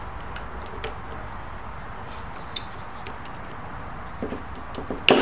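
Faint, scattered small clicks and scrapes of a thin metal tool prodding at the tension spring inside a Bogen tripod head, with one sharp click about five seconds in, over a steady low hum.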